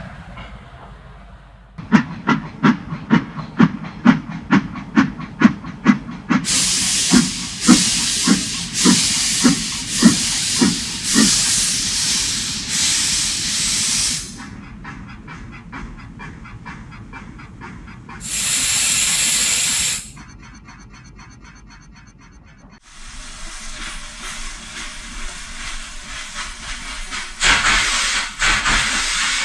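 Steam locomotive chuffing in an even rhythm of a little over two beats a second, then hissing loudly as steam is let off, the chuffs still showing through. A short, sharp blast of hiss comes about two-thirds of the way in, and after a quieter stretch the hissing picks up again.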